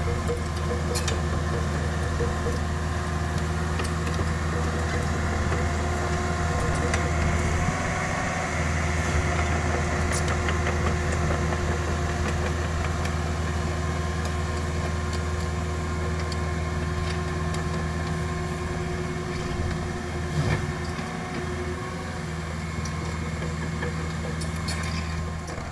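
Caterpillar 305.5E2 mini excavator's diesel engine running steadily under digging load, with a short dip in its note about 8 seconds in and again near 20 seconds, and a few light knocks. This is a work test for an engine that had been bogging down and nearly stalling under combined work, and here it keeps running.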